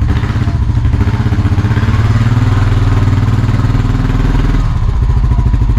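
Honda Rancher TRX350's 350cc air-cooled single-cylinder engine running under throttle on a ride. It is freshly running again after a carburetor rebuild. It gets louder for a couple of seconds, then eases off about three-quarters of the way through.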